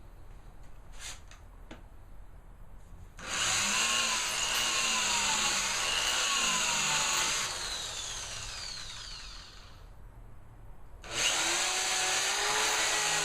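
Power drill running into wood in two runs: the first starts about three seconds in, its pitch wavering as the trigger and load change, then winds down; the second starts near the end. These are the fresh screw holes and screws going into a crosscut sled's fence as it is re-fastened square.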